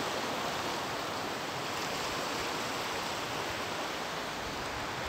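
Steady wash of small sea waves breaking against the shore.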